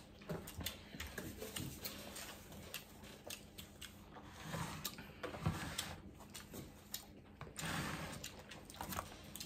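Quiet eating sounds: chewing, with scattered light clicks and taps of plastic forks against plates.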